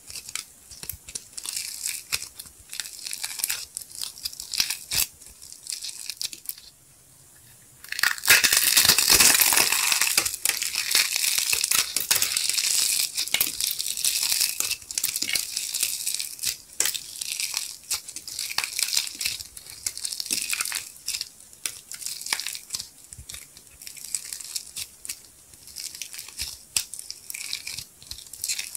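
Blue soap clay flecked with gold sequins being stretched, torn and squeezed by hand, giving a dense crackling and crunching. The crackling drops away briefly about seven seconds in, then comes back louder and denser for several seconds before easing into lighter crackles.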